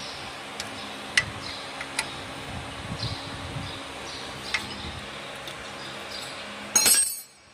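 Hinge joint fence machine, which is driven by an electric motor, running with a steady hum and scattered sharp metallic clicks. About seven seconds in there is a louder ringing metal clank, and then the sound cuts off abruptly.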